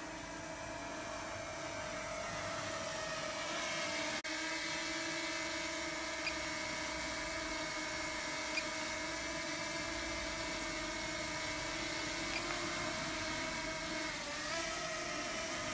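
Small white quadcopter drone hovering low, its propellers making a steady whine of several held tones. The pitch dips briefly near the end.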